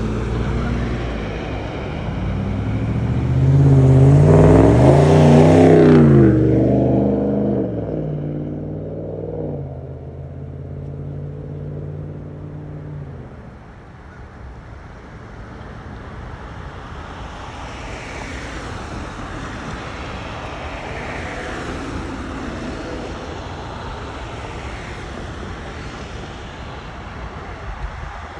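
A car driving past close by, its engine revving up and down and loudest a few seconds in. A steady engine hum follows and stops about thirteen seconds in, leaving a fainter steady road noise.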